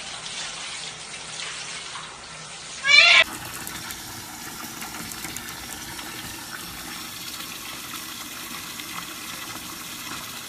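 Water spraying from a hand-held shower head into a plastic bucket with a cat sitting in it, and one short, loud cat meow about three seconds in. After that only a steady hiss.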